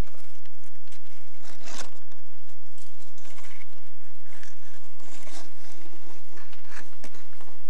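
Scattered short rustling and scraping sounds, the loudest about two seconds in, over a steady hum.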